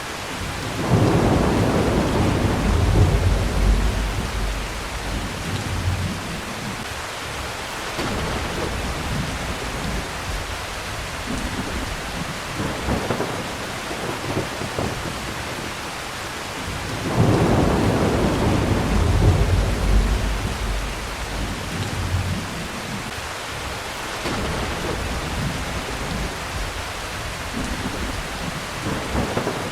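Steady heavy rain with rolling thunder: one long deep rumble starts about a second in and another just past halfway, each going on for several seconds, with fainter grumbles in between.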